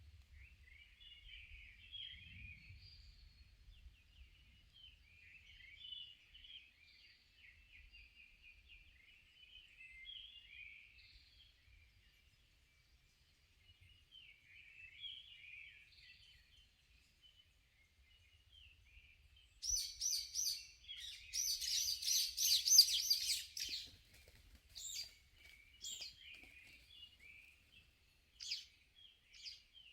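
Wild birds singing in a forest: a steady stream of small, high chirps and trills, then about twenty seconds in a much louder, nearer bird gives a rapid run of high calls for about four seconds, followed by separate sharp calls.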